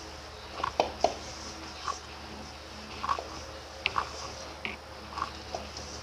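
Hands kneading stiff samosa dough of flour, oil and water in a stainless steel bowl: about ten irregular, short squishes and slaps as the dough is pressed and folded, over a steady low hum.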